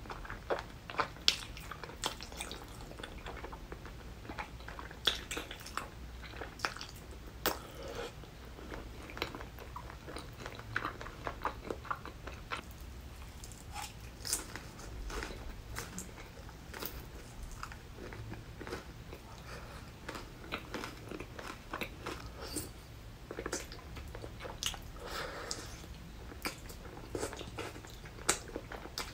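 Close-miked eating: a person biting and chewing tteokbokki rice cakes in spicy sauce, with irregular sharp crunches from the crispy fried potato.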